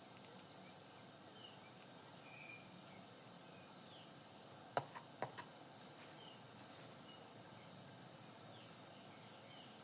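Faint background hiss with scattered short bird chirps. About five seconds in come two sharp clicks a bit under half a second apart, each followed by a smaller one.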